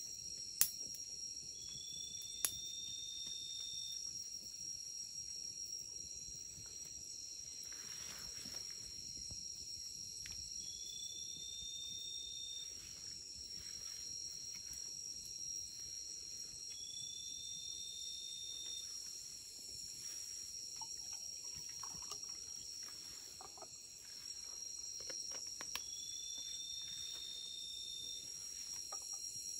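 Night insect chorus in tropical forest: crickets and other insects keep up a steady, high-pitched ringing trill. Four times, a drawn-out call rises slightly in pitch over about two seconds. Two sharp clicks come in the first few seconds.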